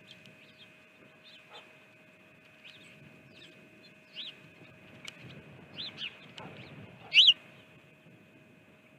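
Small birds giving short chirps, scattered through and loudest in a quick pair about seven seconds in, over a faint steady tone.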